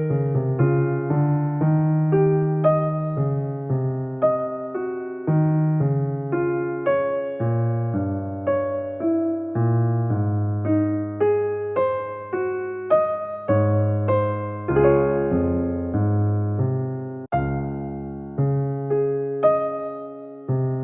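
Soft background music played on an electric piano: a steady flow of gentle struck notes, two or three a second, with a brief break about three-quarters of the way through.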